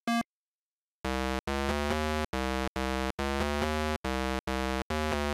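8-bit-style synthesizer music: one short beep, a pause of under a second, then a low, buzzy electronic tune in short notes, about two a second.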